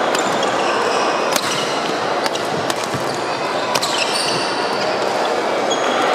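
Badminton rally: several sharp racket strikes on the shuttlecock, and shoes squeaking briefly on the court floor, over the steady din of a large sports hall.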